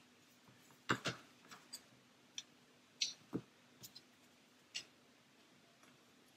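Light clicks and taps of laser-cut board pieces being pushed together by hand as a display-stand frame is slotted into shape, about ten scattered clicks in the first five seconds.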